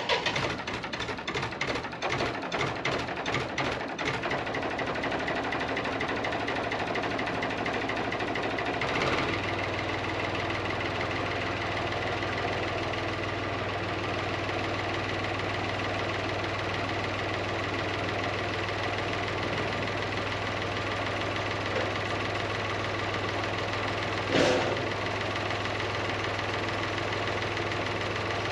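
An engine, likely on farm machinery, clatters rapidly for the first few seconds and then runs steadily. About nine seconds in, its note deepens, and a short louder sound comes near the end.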